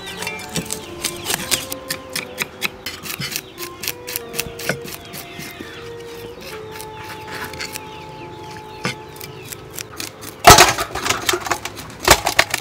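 Cleaver blades scraping scales off fresh fish on wooden chopping blocks, a rapid run of sharp scratchy clicks. About ten seconds in there is a louder clatter, as a fish lands in a metal basin.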